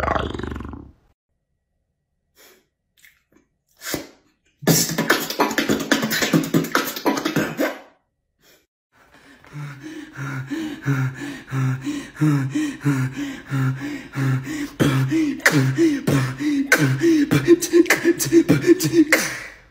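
Man beatboxing with his mouth: a dense burst of clicky beats, a pause, then a steady pulsing beat a little under two a second, mimicking a beatboxer running out of breath.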